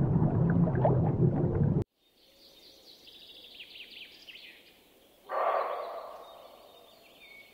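A pronghorn gives one loud, short alarm snort about five seconds in, over faint songbird chirping. Before that comes about two seconds of low underwater rumble that cuts off abruptly.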